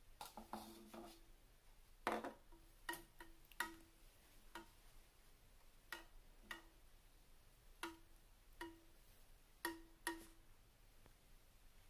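A metal spoon clinking against a drinking glass while salt is stirred into water: about a dozen light, irregular ringing taps, some close together and some a second or more apart.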